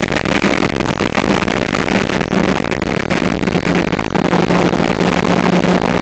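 Suzuki Swift Sport's engine running on track at steady revs, buried in a dense, harsh roar of wind and road noise from a poor recording. The engine's pitch dips slightly a couple of seconds in, then holds.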